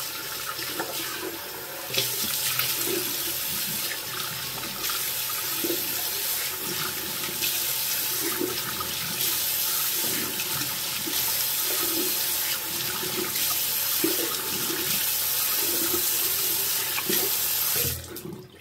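Tap running into a sink while someone rinses cleansing balm off her face. The flow gets louder about two seconds in, and the tap is shut off suddenly near the end.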